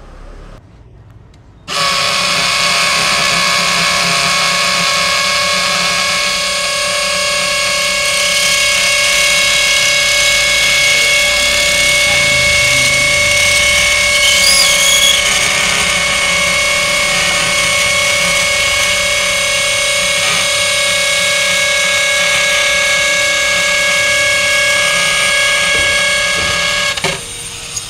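Milwaukee M18 FUEL hammer drill in hammer-drill mode, a masonry bit boring into a concrete wall. It starts about two seconds in, runs steadily for some 25 seconds, and stops abruptly near the end.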